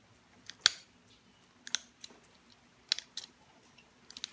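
A run of short, sharp clicks as a metal-tipped pressure tool pops small flakes off the edge of a stone point while notching it; the loudest click comes about two-thirds of a second in.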